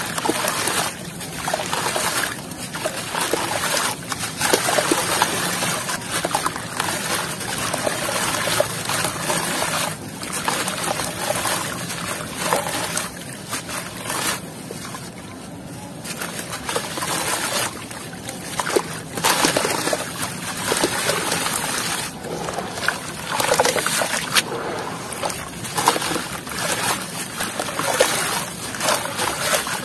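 Wet, grainy sand chunks crushed and crumbled by hand into a tub of water: crunching mixed with splashing and trickling as the crumbs pour in, in uneven bursts.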